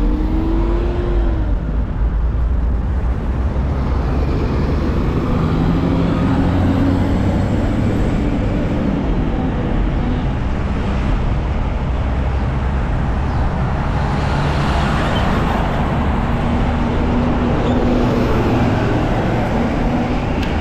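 Road traffic: motor vehicles running and passing, under a steady heavy low rumble.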